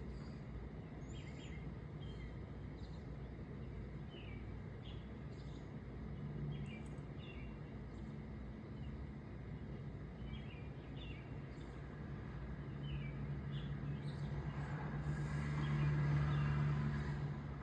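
Outdoor ambience of short, scattered bird chirps over a steady low background hum. Near the end a vehicle passes, rising to its loudest and then fading away.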